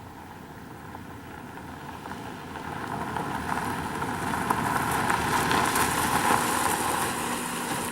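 A rushing noise that grows louder over the first three to four seconds and then holds steady.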